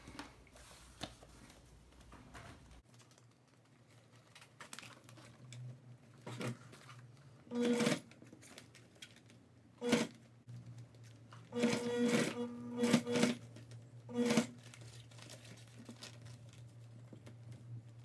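Domestic sewing machine stitching in short spurts, about four runs of half a second to a second and a half, starting some seven seconds in. Between them, synthetic fabric rustles and crinkles as it is handled.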